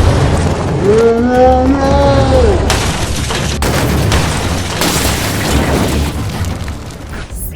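Loud, steady rumbling noise, with a pitched sound that rises and falls for about a second and a half, starting about a second in.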